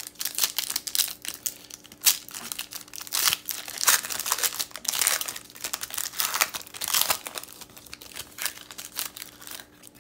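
Foil wrapper of a trading card pack being torn open and crinkled by hand: a busy, irregular crackling.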